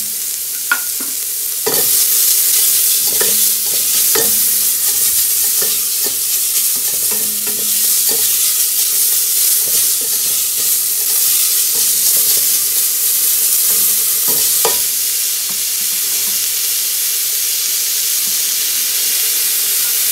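Chopped red onion and garlic frying in olive oil in a stainless steel pot, sizzling steadily while a silicone spatula stirs and scrapes it, with occasional knocks of the spatula against the pot. The sizzle grows louder about two seconds in.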